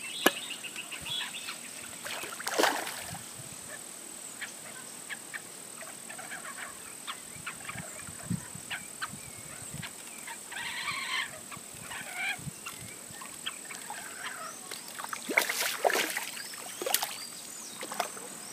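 Rural outdoor ambience: scattered bird calls over a steady high-pitched insect drone, with a few sharp knocks and rustles, loudest about two and a half seconds in and again near the end.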